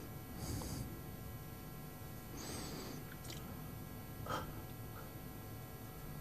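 Faint breaths, twice, picked up close on a microphone, over quiet room tone, with a light click about four seconds in.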